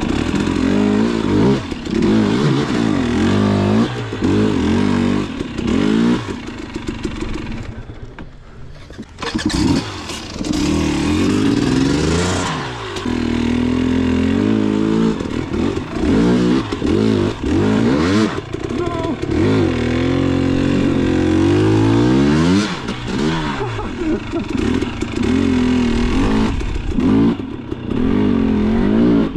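Dirt bike engine being ridden hard on rough enduro trail, revving up and falling back again and again as the throttle is worked, with some rattle and clatter. The engine eases off briefly about eight seconds in, then picks up again.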